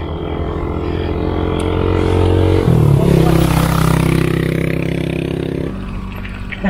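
A motorcycle engine running close by, growing louder, then jumping to a higher pitch about two and a half seconds in as it revs up or shifts, holding steady, and fading near the end.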